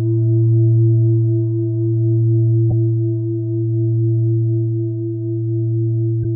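Steady meditative drone of several sustained tones, a deep hum the strongest, swelling and easing slightly every second or two. A faint click comes a little under three seconds in and another near the end.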